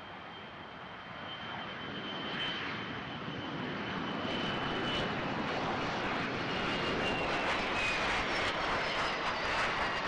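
McDonnell Douglas MD-80-series airliner's rear-mounted jet engines rolling out on the runway just after touchdown. The engine noise grows steadily louder, and a thin high whine slowly falls in pitch.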